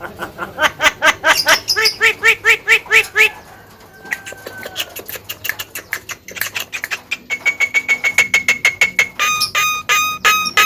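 Javan myna giving two runs of quick repeated harsh notes, about five a second, with a quieter stretch in between.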